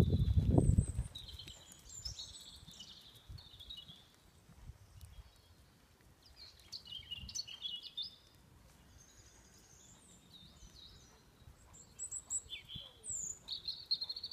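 Wild birds chirping and trilling over soft, muffled hoofbeats of a ridden horse on a sand arena surface. A louder low rumble comes in the first second as the horse passes close by, and the hoofbeats grow more distinct again near the end as it approaches.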